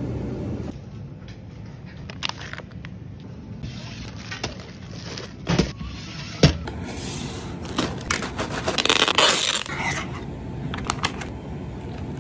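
Close-up handling sounds of a convenience-store freezer and plastic ice cups. A few sharp knocks and clicks, the loudest just past the middle as the freezer's sliding glass door is worked, then a couple of seconds of crinkling, crackling plastic as the sealed ice cups are handled, and a few more clicks near the end.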